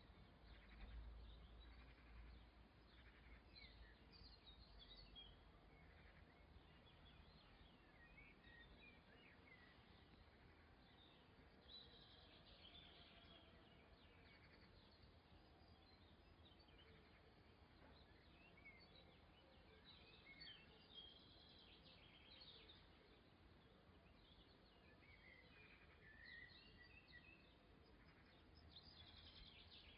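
Near silence, with faint, scattered bird chirps throughout and a low rumble in the first few seconds.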